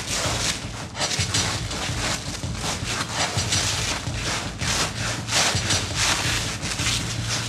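Velcro-covered body rubbing and pulling against the black velcro lining of a cone: repeated rasping scrapes and tearing surges, over a low steady hum.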